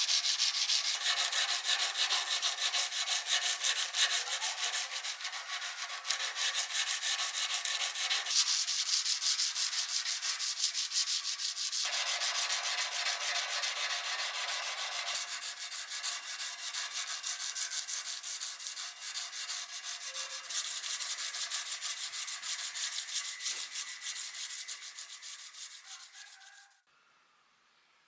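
Hand sanding with sandpaper: rapid back-and-forth scratchy strokes that stop suddenly near the end.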